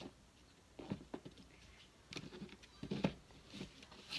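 Light handling noises: a few soft taps, clicks and rustles as a hard-shell earphone case and the earphone cables inside it are handled on a tabletop.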